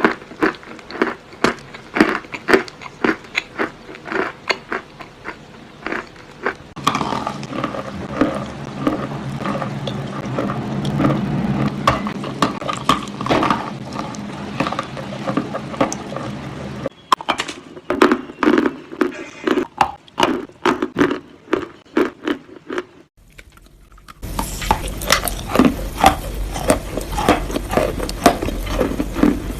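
Close-up crunching as pieces of chalk are bitten and chewed: a quick run of crisp, irregular crunches. The background changes abruptly about 7, 17 and 24 seconds in, as between separate clips.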